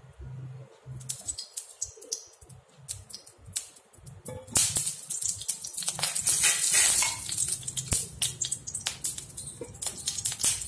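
Cooking oil heating in a hot non-stick kadhai, crackling and sizzling: scattered pops at first, turning into a dense, loud crackle about four and a half seconds in.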